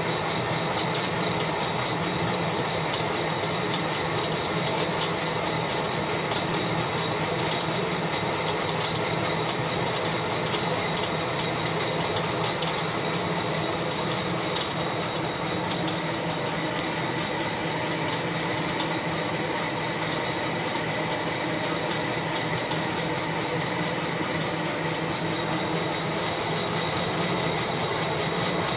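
Fracino Roastilino fluid-bed coffee roaster running: a steady blower rush with coffee beans rattling as hot air tumbles them round the glass roasting chamber.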